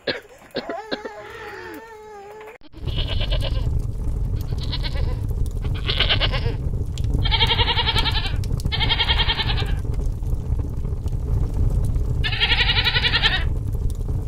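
A goat bleating again and again, about six quavering calls of roughly a second each, over a steady low rumble. The rumble and bleats start suddenly a few seconds in, after a baby's faint whimpering.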